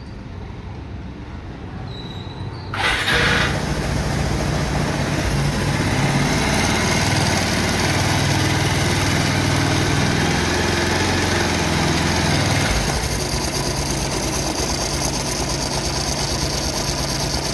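Bajaj Pulsar 220 motorcycle's single-cylinder engine starting about three seconds in, then idling steadily with a metallic "ching ching ching" chatter from a loose timing (cam) chain.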